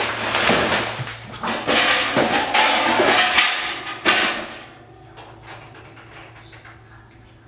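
Loud rustling handling noise with sharp knocks, stopping about four and a half seconds in, over a low steady hum.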